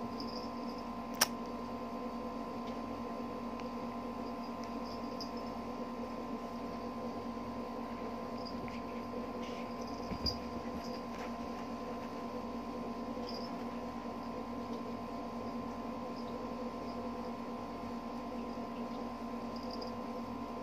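Faint high squeaky whines from a small long-haired dog at play, over a steady electrical hum. A sharp click sounds about a second in and a soft bump about ten seconds in.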